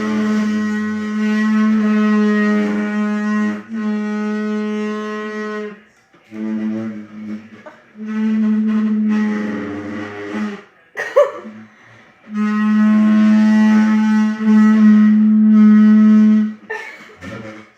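A chair giving out a long, low, horn-like squeak, like a clarinet or saxophone, held at one steady pitch in several drawn-out stretches with short breaks and a few clicks between them.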